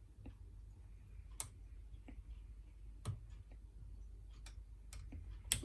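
Faint, scattered clicks of a lock pick working the pin stacks inside a Yale Y121B brass padlock held under tension, with a louder, sharper click near the end.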